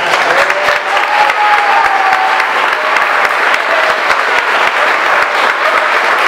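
A crowd applauding steadily, dense clapping with a few voices calling out over it.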